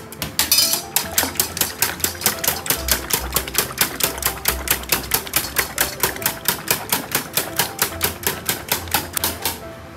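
Wire whisk beating raw eggs in a stainless steel bowl, the wires clicking against the metal in a fast, even rhythm of about six strokes a second, stopping shortly before the end.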